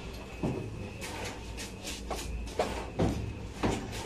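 Hands working on a reflow oven's lower panel while taking out heater parts: a string of irregular light knocks and scrapes, about one every half second, over a steady low hum.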